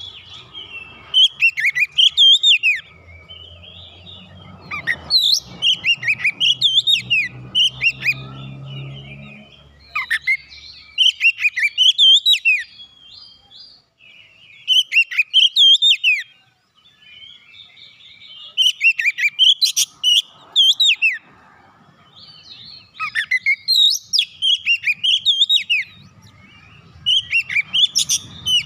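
Oriental magpie-robin (kacer) singing: loud phrases of varied sweeping whistles and chirps, repeated in bouts every few seconds with short pauses between them.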